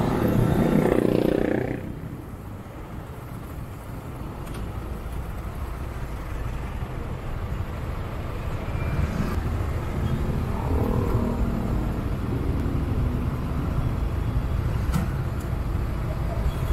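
Road traffic heard from a moving motorcycle. A vehicle is loudest in the first two seconds, then there is a steady low road rumble, with another engine coming up again about ten seconds in.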